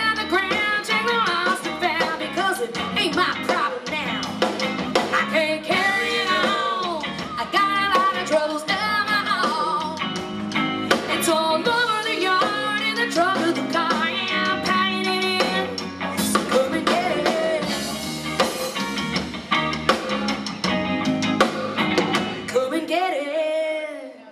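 Live band performing: a woman singing lead over electric guitars, bass and a drum kit. Near the end the band stops together and the song ends.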